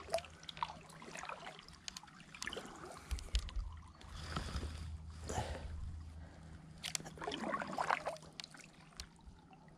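Kayak paddle strokes in the river: irregular splashes and water trickling off the blade, with a few short clicks and knocks.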